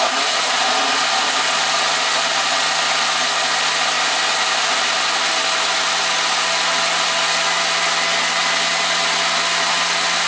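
Countertop blender motor running steadily, puréeing a jar of tomatillos and serrano peppers for green salsa.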